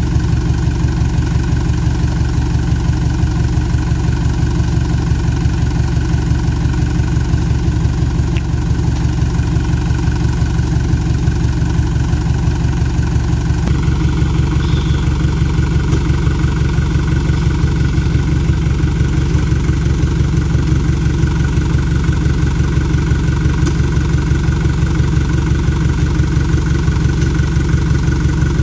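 Light cab-over truck's engine idling steadily with a fast, even low pulse.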